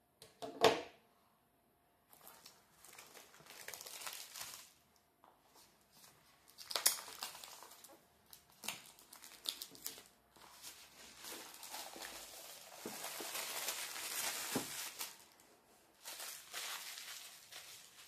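Clear plastic shrink wrap being peeled and pulled off a cardboard box, crinkling and tearing in bursts, with a sharp knock about a second in.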